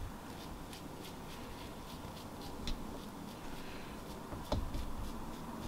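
Faint, scratchy strokes of a tint brush working bleach into hair, with a soft click near the middle and a light knock a little later.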